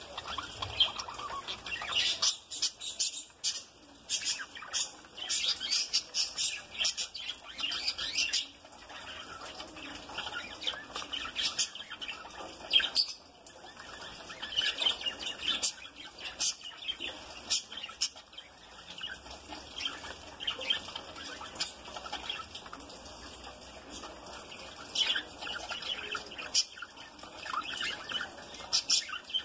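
Budgerigars chattering and chirping, a busy run of short, high chirps that comes in louder clusters and quieter spells.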